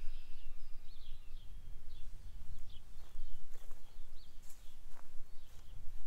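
Outdoor wind rumbling on the microphone, with a bird chirping again and again over it.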